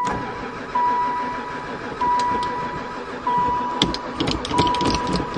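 A vehicle warning chime beeping over and over, about once every 1.25 seconds, over a rough steady mechanical noise with a few sharp clicks near the end, in a van that will not start.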